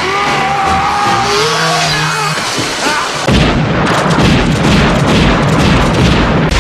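Action-film soundtrack: music with held and gliding tones for about three seconds, then a sudden loud, dense din of booms with a heavy low rumble.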